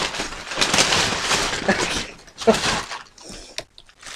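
Crinkling and rustling of plastic wrapping and paper packing as a bagged item is pulled out of a cardboard box, dense at first, then quieter with a few sharp crackles. A short vocal sound comes about halfway through.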